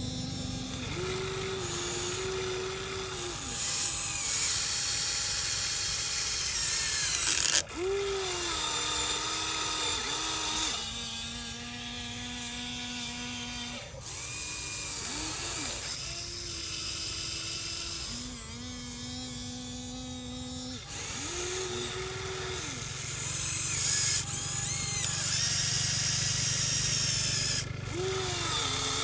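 Electric motors and gearboxes of radio-controlled construction models whining as they run. The whine starts and stops every few seconds, stepping and gliding up and down in pitch, and grows louder with a hiss during longer movements about four seconds in and again near the end.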